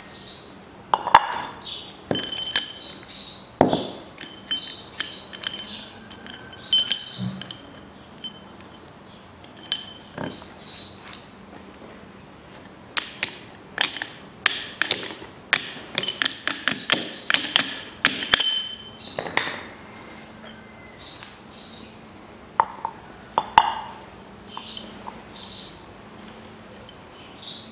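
Hammer striking a metal tube drift on a car driveshaft to drive off the old intermediate-shaft support bearing. It makes a run of sharp metal clinks and knocks, densest in the middle. Birds chirp on and off throughout.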